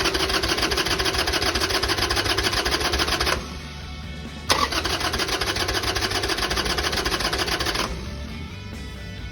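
Electric starter of a Harley-Davidson Sportster XL883R cranking the cold 883 cc V-twin with the choke pulled. It cranks in bursts of about three and a half seconds, each beginning with a sharp clack, two in full and a third starting right at the end, with no sign of the engine catching.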